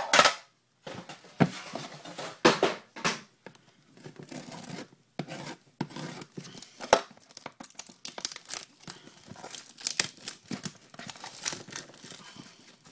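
Plastic shrink wrap being picked at, torn and peeled off a sealed trading-card box by hand: an irregular run of crinkling and crackling, with a few sharp snaps of the plastic.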